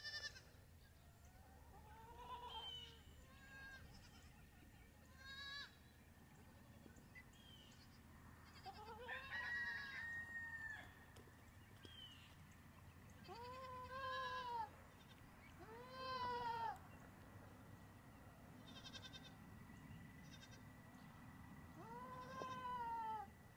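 Goats bleating on and off, about half a dozen short wavering calls spread through, fairly quiet overall.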